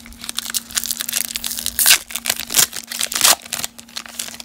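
A baseball card pack's wrapper being pulled, torn and crinkled open, a long run of crackling rips with a few sharper tears; the pack is a stubborn one, hard to open.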